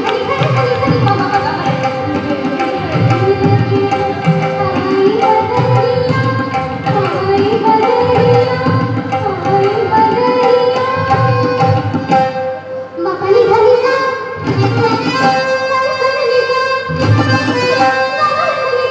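Live Indian song with tabla, harmonium and a woman singing through a microphone. The tabla strokes keep a steady beat under the wavering melody, and the music thins briefly about two-thirds of the way through.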